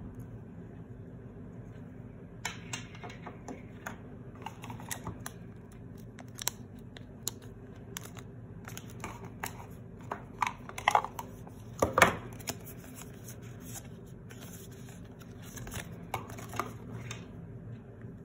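Handling noise: scattered clicks, taps and rustles of hands moving a smartwatch and a cardboard box with paper leaflets, the loudest a sharp knock about twelve seconds in. A steady low hum runs underneath.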